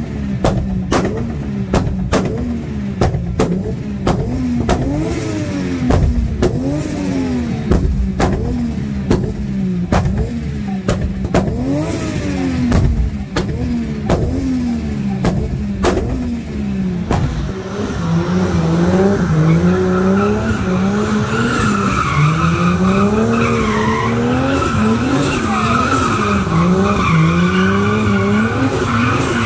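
Drift car engine revving up and down again and again, with a string of sharp cracks over the first half. Then tyres squeal steadily through the second half while the engine keeps rising and falling.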